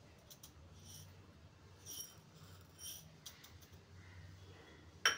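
Split moong dal grains poured from a small steel cup into a steel bowl, giving faint light rattles and clicks, then one sharper clink near the end. Two short high chirps are heard faintly in the middle.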